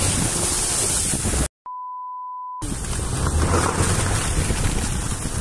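A steady rushing of wind on the microphone. About a second and a half in, it cuts out abruptly and a single pure beep tone, edited into the soundtrack like a censor bleep, sounds for about a second. Then the rushing returns.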